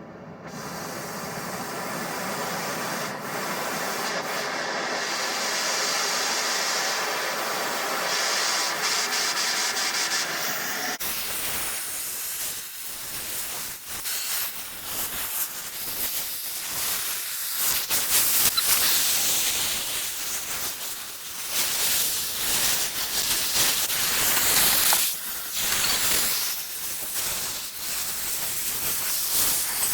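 Oxy-fuel cutting torch hissing steadily. About eleven seconds in, the sound changes abruptly to a rougher, uneven hiss with crackle that rises and falls.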